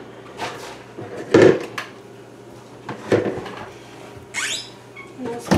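Mixing bowls being handled and set down on a kitchen counter: several separate knocks and clatters, the loudest about a second and a half in, with a brief rising swish a little after four seconds.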